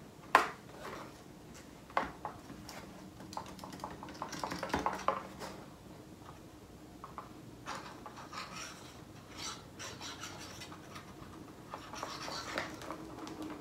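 Tip of a squeeze bottle of liquid glue scraping and rubbing across cardstock as glue is run along the panel edges, with the card shifting on a cutting mat. A couple of sharp taps, one just after the start and one about two seconds in, stand out.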